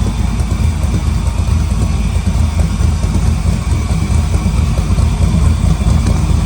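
GM LS3 6.2-litre V8 swapped into a 1972 Chevrolet Impala, idling steadily. Its injector connectors have been fixed to cure misfires on cylinders 1, 4 and 8, and the misfire codes are cleared.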